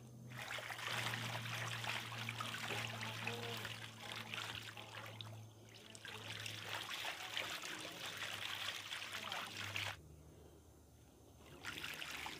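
Water trickling and splashing in a fish-farm tank, over a low steady hum. It cuts off suddenly about ten seconds in and comes back near the end.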